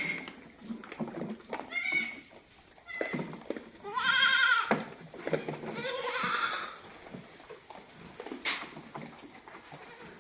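Goats bleating several times. The loudest is a bleat about four seconds in that rises and then falls in pitch, with shorter bleats around it and a single sharp click near the end.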